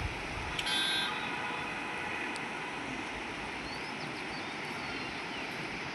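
Steady hiss of monsoon rain, with a short horn toot just over half a second in.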